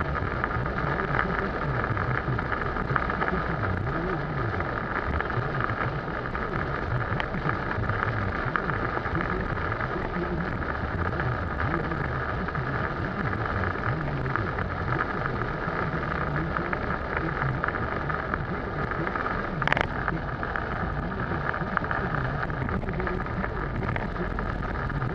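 Heavy rain beating on a car's roof and windshield, together with steady tyre and road noise on the wet road, heard from inside the moving car. A single sharp click about three-quarters of the way through.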